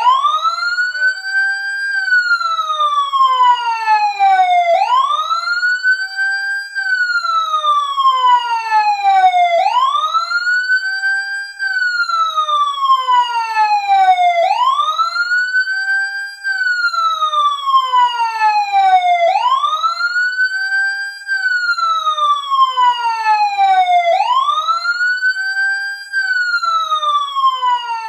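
Fire truck siren wailing: a loud rising and falling tone that climbs quickly, holds briefly at the top and slides down slowly. The cycle takes about five seconds and repeats six times.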